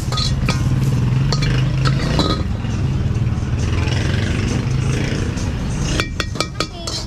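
Steel ladle scraping and clinking against a wok as egg fried rice is scooped out, with a cluster of sharp metal clinks about six seconds in, over a steady low rumble.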